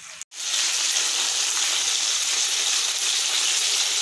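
Whole pomfret sizzling steadily as they shallow-fry in hot mustard oil in a pan. The sizzle comes in after a brief gap about half a second in.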